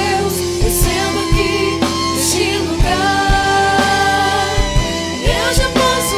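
Gospel band playing: drum kit and keyboards under voices holding long sung notes, with steady drum and cymbal hits.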